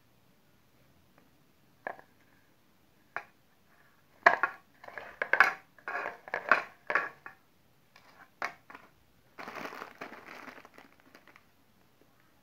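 Plastic instant-noodle wrapper (an Indomie Mi Goreng packet) crinkling as it is handled: a couple of faint clicks, then loud irregular crackles about a third of the way in, and a denser stretch of crinkling later on.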